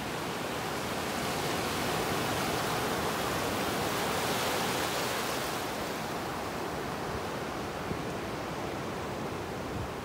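Ocean surf breaking and washing up a beach: a steady rushing wash that swells over the first few seconds and eases off after about five seconds.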